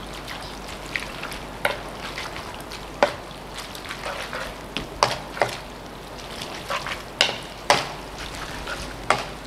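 Wooden spatula tossing and stirring fettuccine in a buttery sauce in a non-stick frying pan: irregular knocks and scrapes of the spatula against the pan over a soft wet stirring noise.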